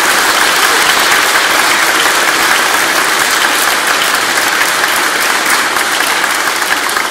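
Audience applauding, many people clapping together at a steady level.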